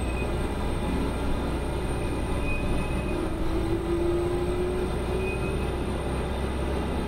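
1995 New Flyer D40LF diesel transit bus under way, heard from on board: a steady engine and road rumble, with a whine that slowly rises in pitch from about three seconds in.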